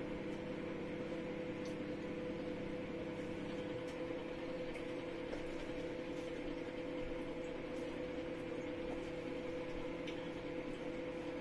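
Steady mechanical hum of a running kitchen appliance, holding a few level tones; one lower tone drops out about four seconds in. A few faint light taps sound over it.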